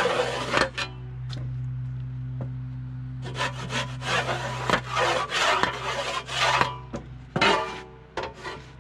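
A saw cutting through wood in a run of rasping strokes, roughly two to three a second, over a steady low hum that stops about five seconds in.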